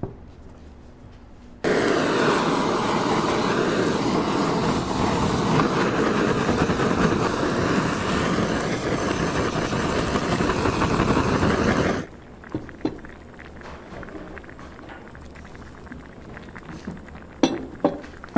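Handheld kitchen blowtorch firing at the lobster for about ten seconds: a loud, steady hiss that starts and cuts off abruptly. After it, a few light taps near the end.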